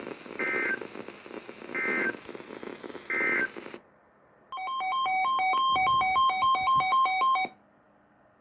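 Three short warbling data-tone bursts over weather-radio hiss, about a second and a half apart: the EAS end-of-message code closing a severe thunderstorm warning on NOAA Weather Radio. The broadcast hiss then cuts off, and about a second later a loud electronic beeping tune, hopping between two or three pitches like a ringtone, plays for about three seconds and stops suddenly.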